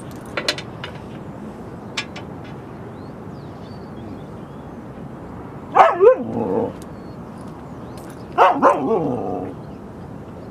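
Siberian husky barking twice, about six and eight and a half seconds in, each time a quick pair of loud barks that trails off. A few light clicks come before, near the start.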